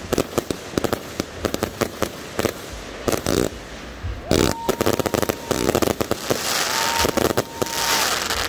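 A 260-shot consumer firework cake firing a rapid string of shots and bursts. A steady high tone sounds twice in the second half, and the shots thicken into a dense hiss near the end.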